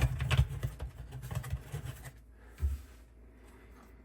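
Small clicks and knocks from handling plastic dishwasher sump parts as they are screwed back in place, busiest in the first two seconds, with one louder thump about two and a half seconds in.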